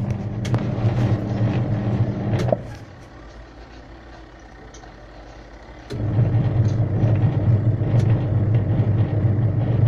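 Washing machine wash motor humming steadily as it drives the pulsator through a newly fitted belt; it cuts out about two and a half seconds in and starts again about three seconds later. The pulsator still turns slowly despite the new belt, which the repairer takes as a sign of a faulty pulsator shaft assembly.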